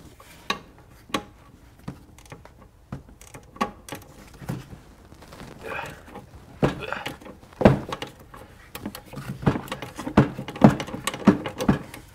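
Irregular clinks and knocks of metal hand tools against bolts and fittings as a socket wrench is fitted to a 14 mm bolt. The knocks are sparse at first and come thicker and louder in the second half.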